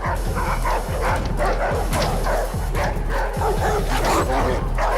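Laboratory dogs barking and yelping repeatedly, over film score music.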